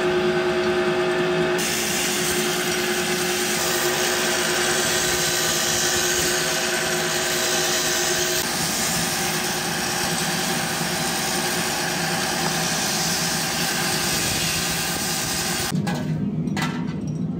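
Electric-motor-driven rotary-table machine running steadily with a hiss like grinding as brake shoes are carried round under its head. Near the end the machine noise drops away and metal brake-shoe parts clink.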